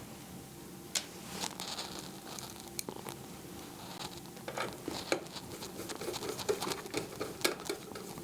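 Irregular light clicks, taps and scrapes of small screws being fitted into a metal computer case by hand, left not fully tight.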